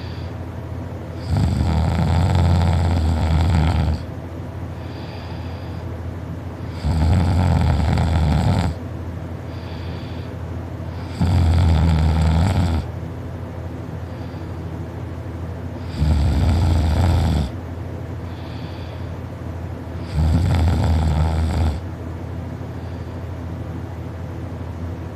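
A sleeping person snoring loudly: five long snores, each one and a half to two and a half seconds, in a slow, regular rhythm about every four to five seconds.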